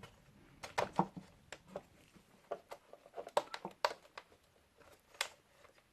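Light plastic clicks and taps as a drone's camera gimbal is handled and pushed into its mount on the drone body, in scattered small knocks.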